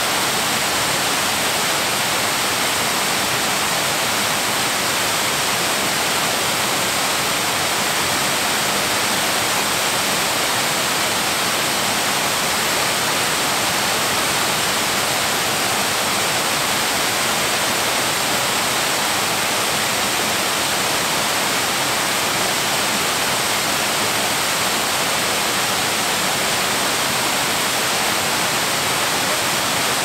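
A 100-foot waterfall pouring: a loud, steady, unbroken rush of falling water.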